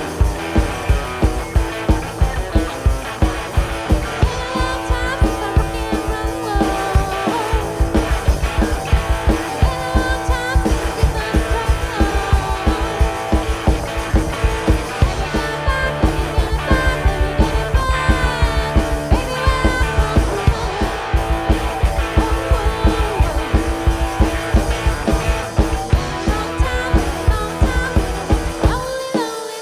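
Live rock band playing an instrumental passage: a lead electric guitar with bent, gliding notes over drums and bass keeping a fast, steady beat. The bass and drums drop out briefly near the end.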